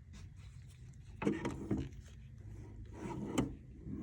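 Handling noise from a small metal toolbox: two short sliding scrapes, about a second in and about three seconds in, the second ending in a sharp click.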